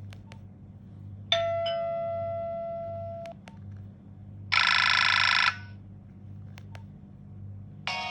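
Nokia 1650 mobile phone playing alert tones through its small speaker. First comes a single chime that rings and fades over about two seconds, then a harsh buzzing tone of about one second that cuts off abruptly. A few faint clicks fall in between, and a new ringtone melody begins near the end.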